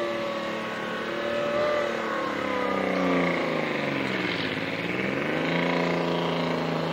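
Engine of a tracked armoured vehicle pulling it across rough ground. The engine note sags about four seconds in, then climbs back up and holds steady.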